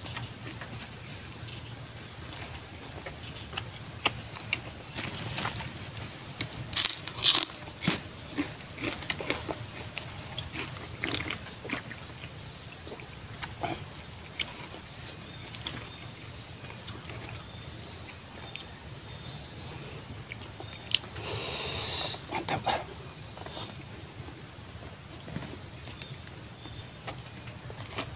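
Close-up eating sounds: fingers handling leaves and food, chewing and scattered sharp crunches, with a rustling burst about three quarters of the way through. Insects keep up a steady high-pitched drone throughout.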